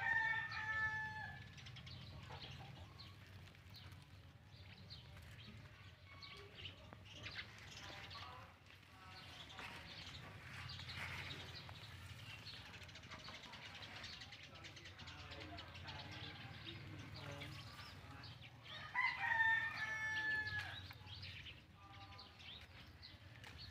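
A rooster crowing twice in the background, once right at the start and again about nineteen seconds in, each crow a held call lasting a second or two. Faint bird chirps and a steady low hum fill the time between.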